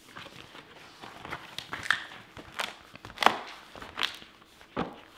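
A large sheet of stiff paper board being lifted and pulled apart along a fresh knife cut, giving a string of short crackles and taps.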